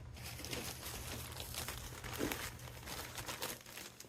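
Soil being poured and spread by hand into a fabric-lined crate, with continuous crinkling and rustling.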